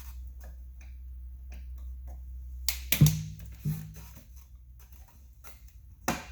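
Light clicks and taps of a hand tool on plastic side-mirror parts, then a sharp plastic snap about three seconds in with a brief low ring, a second snap just after, and one more click near the end.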